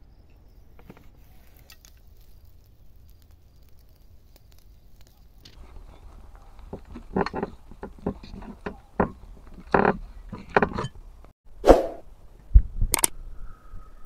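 Hands working raw sheep tail fat and liver on a wooden cutting board: irregular knocks, slaps and squelches that start about halfway through, with a heavier thump near the end.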